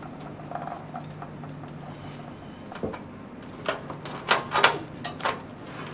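Plastic clicks and knocks of a 4-pin Molex power connector being handled and pushed onto a hard drive, with a burst of sharp clicks in the second half over a steady low hum.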